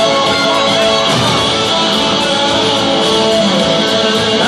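Live rock band playing a guitar-led passage, with strummed acoustic and electric guitars over drums and keyboards, heard from the crowd.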